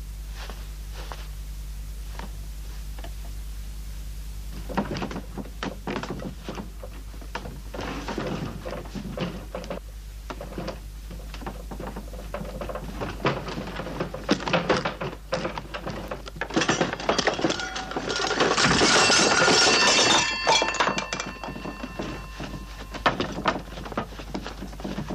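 Knocks, clicks and clattering of a telephone being worked on with hand tools, its parts handled and banged, with something breaking. The knocks start about five seconds in after a low hum, and a louder stretch of rattling and clatter comes about two-thirds of the way through.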